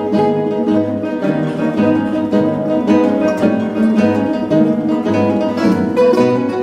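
Ensemble of classical guitars playing together: plucked melody and chords over a low bass note that recurs about once a second.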